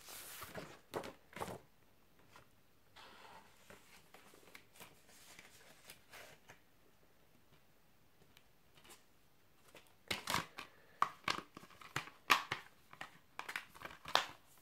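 Packaging being handled: crinkling and rustling of plastic wrap and cardboard as a Blu-ray case is taken out of its box. A short burst of rustles and clicks at the start, then faint quiet handling, then a quick run of sharp rustles and clicks over the last four seconds or so.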